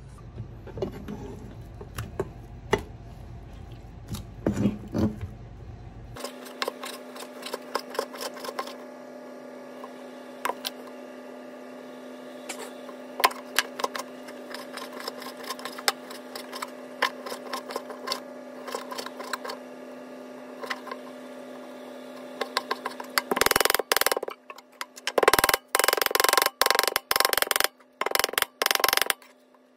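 Kitchen knife chopping raw rockfish fillet on a plastic cutting board. Scattered taps at first, then repeated knife strikes from about six seconds in, and a fast run of loud chops near the end.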